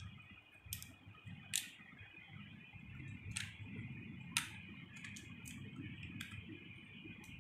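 Faint handling noise of a smartphone held close and moved about: about nine sharp, irregular clicks and taps over a low rumble, with a faint steady high whine underneath.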